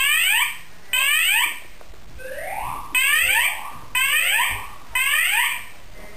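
Fire alarm system sounding its evacuation tone: rising whoop sweeps about one a second in groups of three with a pause between groups, plus a fainter slower sweep in the pause. The system is running on standby battery power with the mains off.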